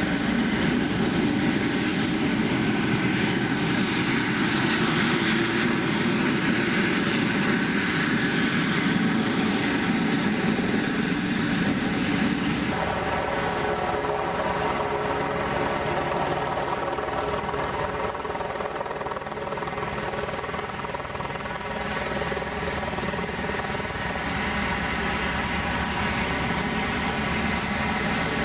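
Piper PA-46-500TP Meridian's Pratt & Whitney PT6A turboprop running at low taxi power: a steady turbine whine with a propeller drone. The sound changes abruptly about thirteen seconds in, its steady tones standing out more clearly afterwards.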